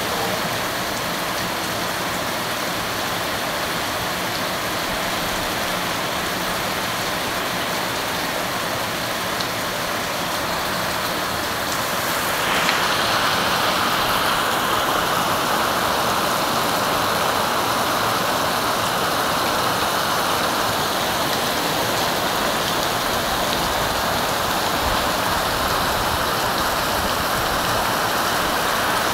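Heavy rain pouring onto a flooded concrete alley, drops splashing on a sheet of running water as a steady hiss. About halfway through the sound steps up slightly louder and brighter.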